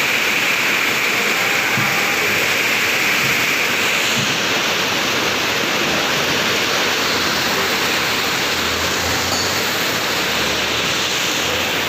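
Heavy tropical rain pouring down in a steady, loud hiss.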